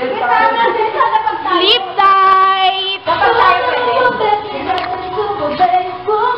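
Young girls' high voices singing a melody, holding some notes for about a second; the singing breaks off briefly about three seconds in, then resumes with more voices overlapping.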